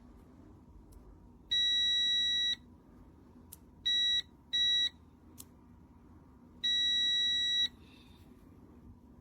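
Digital multimeter's beeper giving four steady high-pitched beeps: a long one of about a second, two short ones in quick succession, then another long one, with a couple of faint clicks between them.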